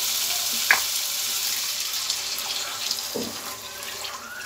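Water poured from a plastic bottle into a hot pan of fried masala, splashing and hissing. The hiss fades gradually as the water cools the pan, with a single sharp click about a second in.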